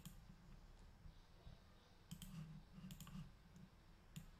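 Faint computer mouse clicks, a few scattered ones: near the start, around two seconds in, around three seconds in and just after four seconds, over faint low room hum.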